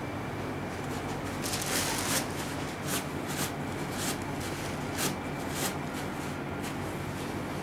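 Fabric rubbing against the microphone: a run of short, irregular brushing scrapes, bunched together about two seconds in, then spaced out, over a steady low hum.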